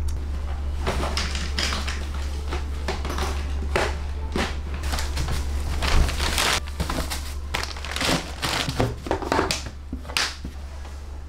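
Irregular knocks, taps and crinkling of things being handled, over a steady low hum.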